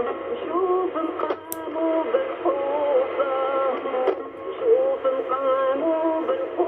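Sung liturgical music from a Polish midnight Mass, received as a longwave AM broadcast: voices holding and stepping between notes, with the narrow, thin sound of AM radio. Two or three short static crackles cut through it, one at about a second and a half and another about four seconds in.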